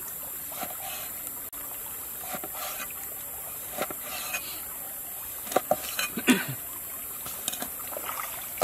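Cleaver slicing snakehead fish fillet, its blade knocking on a wooden chopping board in several sharp strokes, the loudest bunched a little past the middle, over the steady trickle of stream water.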